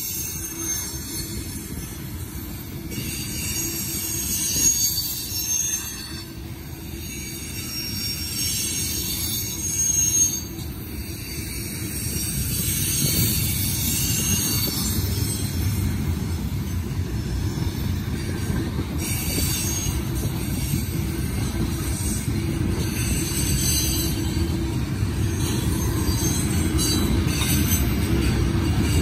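Empty oil tank cars of a freight train rolling past: a steady low rumble of wheels on rail, with high-pitched wheel squeal coming and going.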